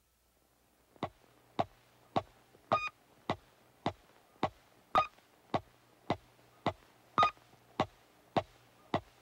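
Electronic blips in a steady rhythm, a little under two a second, starting about a second in; every fourth blip is longer, with a higher ringing tone. A faint low hum runs underneath.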